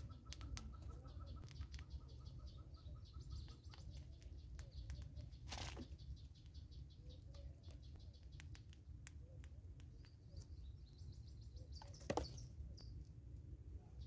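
Quiet woodland ambience: distant birds calling, with a repeated note that stops a few seconds in and high trills, over a low wind rumble, with scattered sharp clicks. Two short bursts of noise come about six and twelve seconds in, the second the loudest.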